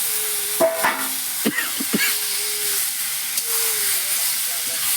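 Young jackfruit pieces sizzling in hot oil and spice paste in a pan, a steady frying hiss, with a few short scrapes and knocks of the spatula in the first two seconds as they are stirred.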